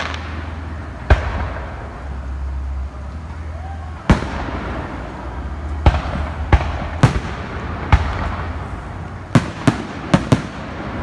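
Aerial firework shells bursting: about ten sharp bangs, a few seconds apart at first and then four in quick succession near the end, each trailing off in an echo.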